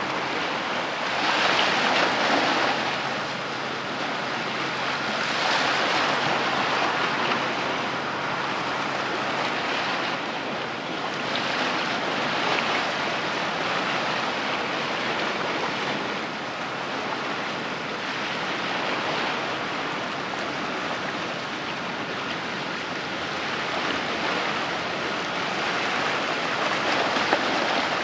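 Waves washing against the shore in a continuous rush that swells and ebbs every few seconds.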